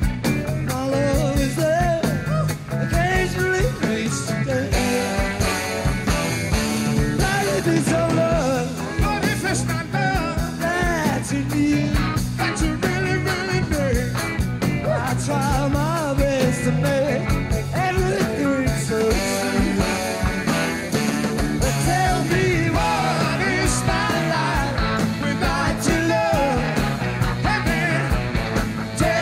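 Rock band playing, with a man singing the lead vocal over electric guitars.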